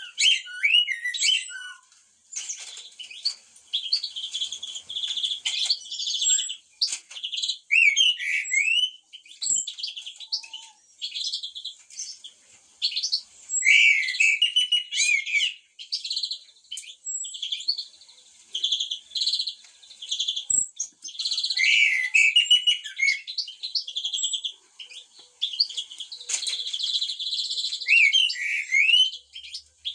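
Blackbirds and other songbirds singing together: a busy mix of warbled, gliding phrases and many short, high chirps that overlap without a break.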